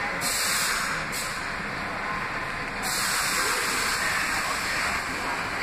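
Subway train noise in the station: a steady rushing rumble with hissing that comes in shortly after the start, drops out about a second in, and returns about three seconds in.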